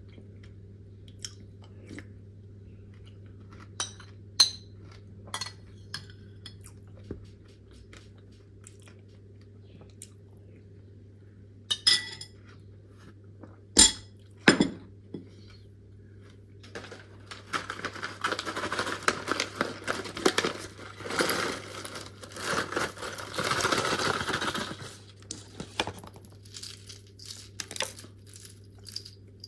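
A spoon or utensil clinking against a dish several times, with a few louder knocks about halfway, then about eight seconds of dense crunching and crackling from freeze-dried fruit.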